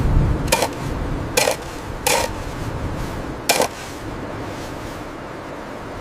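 Four short, sharp hits of hard objects, spread unevenly over about four seconds, over a steady low rumble.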